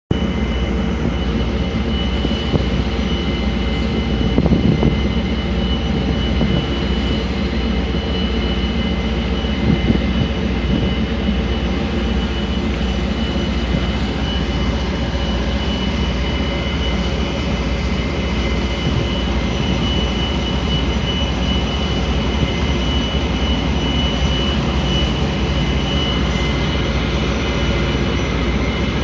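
Steady, loud engine drone of a moving barge, with a constant high whine over it and a couple of brief bumps about four and ten seconds in.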